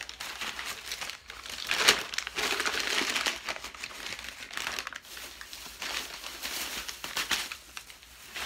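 Plastic shopping bag crinkling and rustling as hands rummage in it, with sharper crackles about two seconds in and again near the end.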